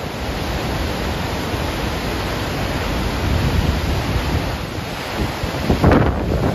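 Large waterfall with heavy spray, its water rushing in a loud, steady noise. Wind buffets the microphone in a short gust near the end.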